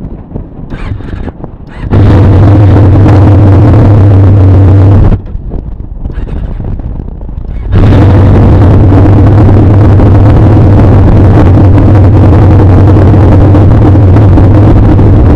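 Motorcycle engine running with its exhaust silencer removed: a very loud, steady drone at constant revs. It comes in about two seconds in, drops back to quieter wind noise for a couple of seconds around the middle, then returns steady from about eight seconds in.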